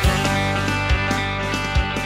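Guitar music with a steady beat, low drum thumps falling a little under a second apart.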